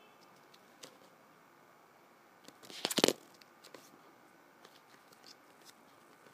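Handling noise from plastic guitar picks with metal split rings being swapped in the fingers: a short burst of rustling and clicking about three seconds in, with a few faint clicks around it.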